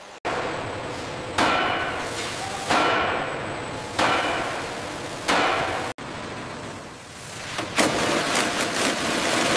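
Metal struck with a hammer: four ringing blows a little over a second apart. Then, after a sudden cut, a busier run of quick metallic knocks and clatter.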